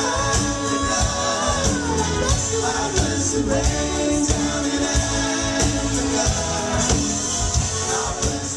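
Live rock band playing a song with lead and backing vocals over a steady drum beat.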